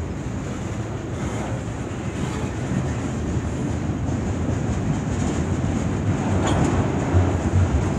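CN freight train's tank cars and autorack cars rolling past, a steady rumble of steel wheels on rail. It grows a little louder toward the end, with a couple of heavier thumps.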